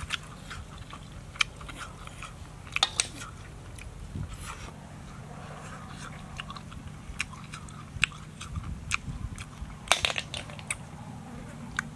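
Close-up chewing and mouth sounds of a man eating boiled snails, with sharp clicks scattered throughout as he picks the meat from the shells.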